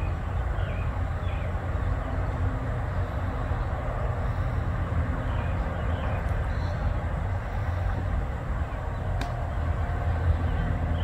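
Steady low outdoor rumble, with faint short high chirps now and then and one sharp click about nine seconds in.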